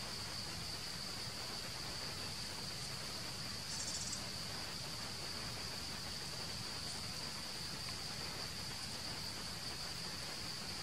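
Steady high-pitched drone of an insect chorus, constant throughout, with a brief rapid trill higher up about four seconds in.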